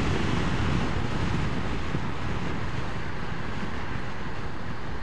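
Steady wind rush buffeting the microphone, mixed with road noise, from a Vespa scooter riding at speed on a highway.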